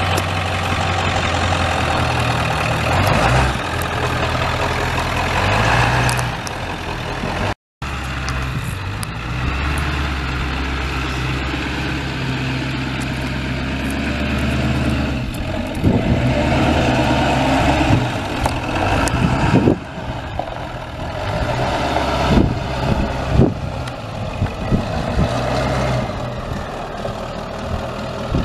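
1997 Ford F250's 7.3-litre turbo diesel V8 idling steadily. The sound breaks off for an instant about a quarter of the way in, and several sharp knocks come in the second half.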